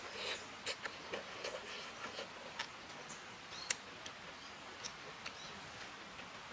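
Close-up eating sounds: wet slurping as strands of food are sucked in during the first couple of seconds, then chewing with scattered small mouth clicks and smacks, one sharper click a little past halfway.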